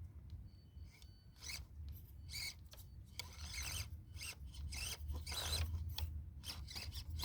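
1/24-scale RC crawler (Axial SCX24) scraping and grinding against rock and twigs in a run of short, irregular rasps as it works at a climb, hung up on its body.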